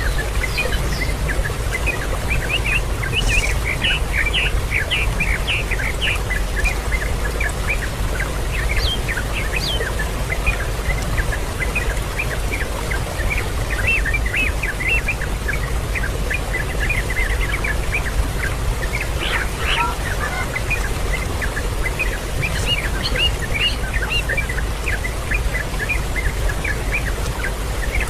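Birds chirping in rapid short calls, many overlapping, over a steady low rumble.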